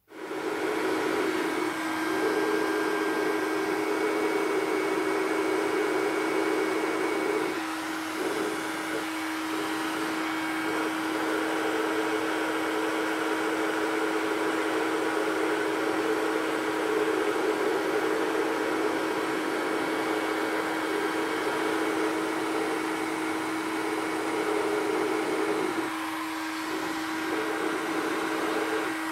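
Hot-air gun running steadily, a motor hum under the rush of air, heating a brass reservoir's filler-neck joint for soft soldering. It switches on abruptly at the start and winds down with a falling pitch right at the end.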